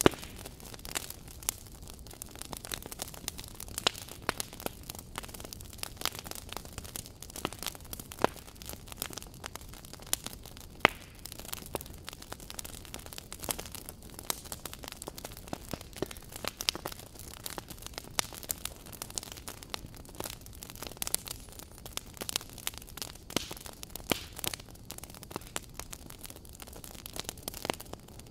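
Crackling fire: irregular pops and snaps, several a second, over a steady hiss.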